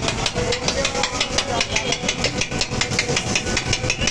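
Metal spatula chopping and scraping minced kabab meat on a flat iron griddle (tawa): a rapid, steady clatter of metal striking metal, several strikes a second.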